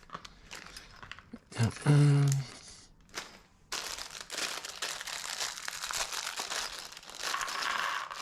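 Plastic packaging crinkling and rustling continuously from about four seconds in, as game components are handled and unwrapped. A few light clicks come first, and there is a short hummed vocal sound about two seconds in.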